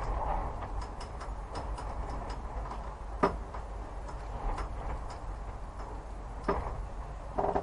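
Spooky ambience: a low steady rumble under scattered faint ticks and clicks, with a sharp knock about three seconds in and two heavier knocks near the end.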